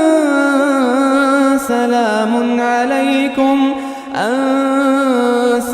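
Quran recitation in the melodic tajweed style: a single voice holding long, drawn-out notes. A new phrase starts about four seconds in, with the voice swooping up into a held note.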